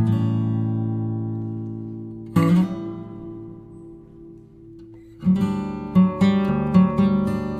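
Background music on acoustic guitar: a chord struck at the start and another about two and a half seconds in, each left to ring and fade, then a steady picked pattern from about five seconds in.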